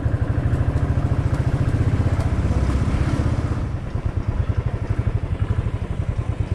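Royal Enfield motorcycle engine running at a steady pace, beating in rapid, even low pulses, a little quieter after a few seconds.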